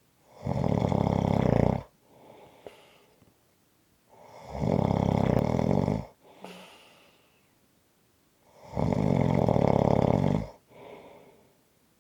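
Snoring: three long, loud snores about four seconds apart, each followed by a quieter breath.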